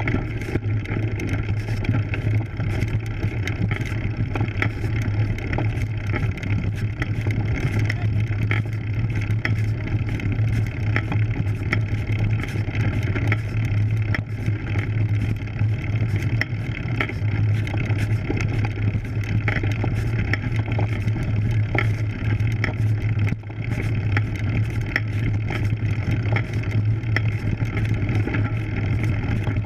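Road bike's tyres rolling over a dirt and gravel road on a steep climb, picked up by a camera mounted on the bike: a steady rumble with frequent small clicks and rattles.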